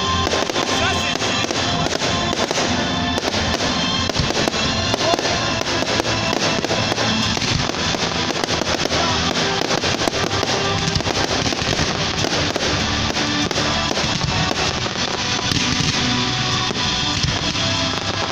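Fireworks display: a dense run of bangs and crackling from aerial shells and ground fountains, mixed with loud music playing.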